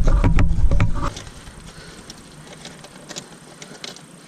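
Hands handling a car's spring-loaded latch mechanism: loud knocking and rumbling handling noise for about a second, then a few faint light clicks of its metal parts.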